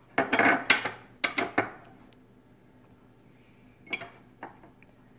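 Kitchen dishware clattering: a quick run of hard knocks and rattles in the first couple of seconds, then two light clicks near the end.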